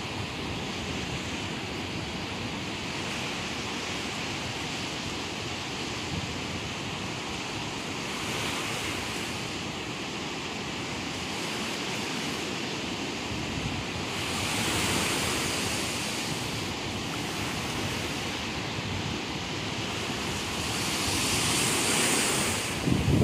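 Sea surf breaking on a rocky beach: a steady wash of waves that swells louder a few times as bigger waves break.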